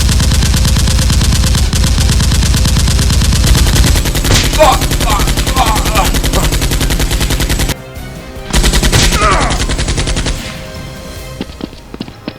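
Rapid machine-gun fire, a dubbed gunfire effect, in two long bursts. An unbroken stream of shots starts suddenly and lasts nearly eight seconds, then a short break, then a second burst of about two seconds that trails off.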